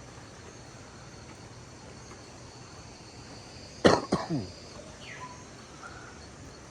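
A single loud cough about four seconds in, over a faint steady high-pitched insect drone of jungle ambience.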